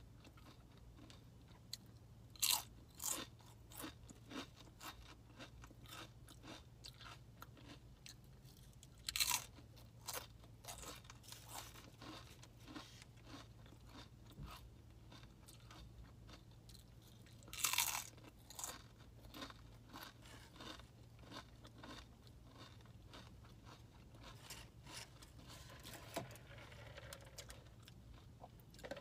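Sun Chips being bitten and chewed close to the microphone: a few loud crunches, with softer crunchy chewing between them.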